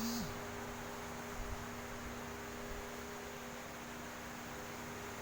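A steady low hum over a faint hiss, with a brief rising-and-falling sound right at the start.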